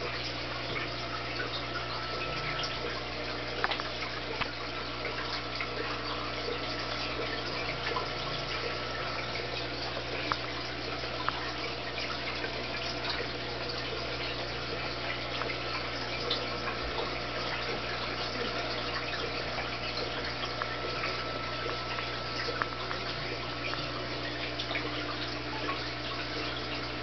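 Running aquarium: steady bubbling and trickling water from the tank's aeration and filter, with a few small pops or drips, over a steady low hum.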